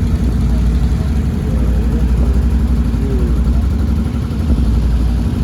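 ATV engine running steadily with a low, pulsing hum.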